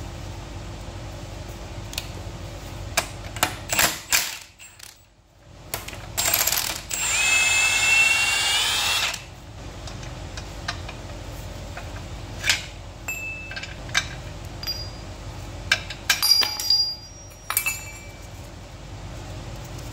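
A power tool runs for about two seconds near the middle, its whine rising slightly before it stops. Scattered metallic clinks and knocks of hand tools on engine parts are heard before and after it.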